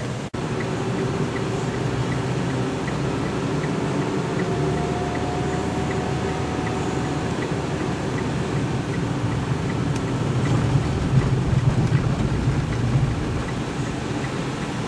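Steady road and engine noise of a moving car, growing somewhat louder about ten seconds in, with a faint ticking about three times a second.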